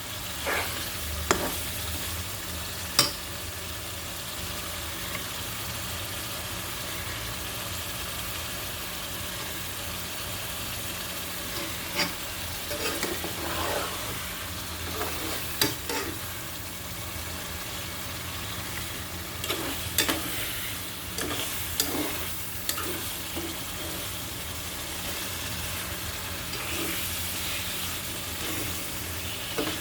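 Spice masala with chopped tomato and green chilli frying and sizzling in oil in a pan, with the fried fish pieces in it. A spatula knocks and scrapes against the pan every few seconds as it is stirred.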